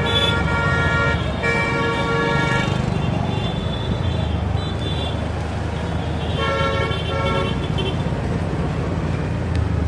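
Street traffic noise, a steady low engine and road rumble, with vehicle horns honking three times: a short toot at the start, a longer one about a second and a half in, and another about six and a half seconds in.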